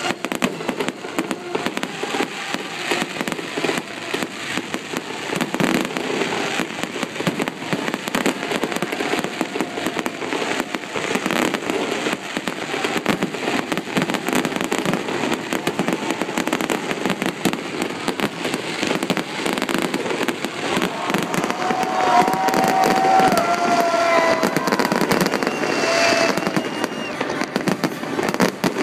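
New Year's Eve fireworks display going off in a dense, continuous barrage of rapid crackling and popping bangs.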